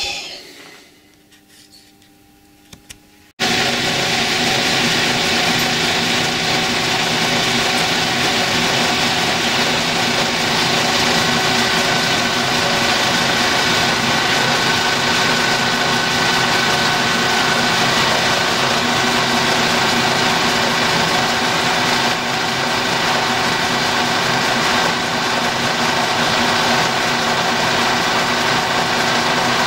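A Colchester metal lathe starts suddenly about three and a half seconds in and runs steadily with a few steady tones, while a carbide tool rough-turns a steel bar.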